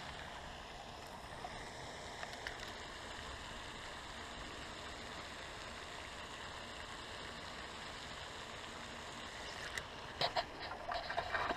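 Steady rushing splash of a pond's aerating fountain. Near the end come a few sharp clicks and splashes as a hooked fish is brought to the bank.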